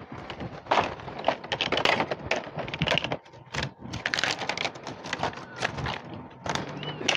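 Plastic packaging crinkling and crackling irregularly as cat food is handled and set out.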